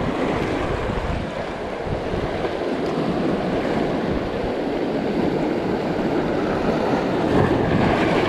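Sea surf washing in and breaking over shore rocks in a steady rush, with wind on the microphone.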